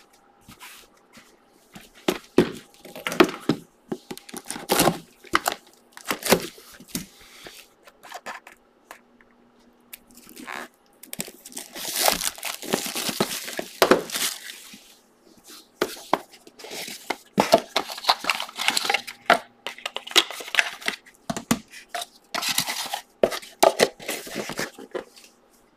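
Plastic shrink wrap being torn and crinkled off a sealed box of trading cards, in a string of short rustling bursts with a longer tearing stretch about halfway through; the cardboard box is then handled and its flap opened.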